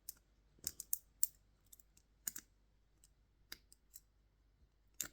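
Hook pick working the pins inside a Hehe dimple lock, giving small irregular metallic clicks, about a dozen over five seconds, with a sharper pair near the end.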